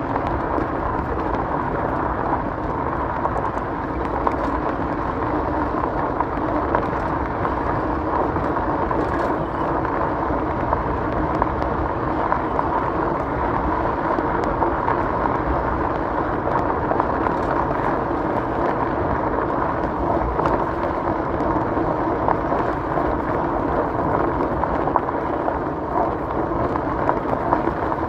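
Steady wind rumble on the microphone and tyre noise from an e-bike rolling along a gravel trail, with scattered small ticks from loose stones.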